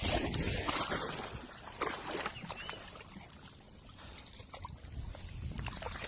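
Water sloshing and splashing, with scattered light knocks.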